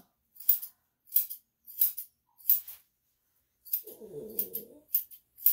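Grooming scissors snipping the hair around a Shih-Tzu/Poodle cross's face: a crisp snip about every two-thirds of a second, then a few quicker snips near the end. About four seconds in, a dog whines briefly.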